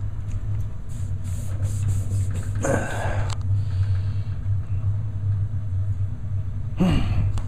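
Steady low hum of gas-fired heating equipment running in a basement boiler room, with a brief rustle or clatter about three seconds in and another short noise just before the end.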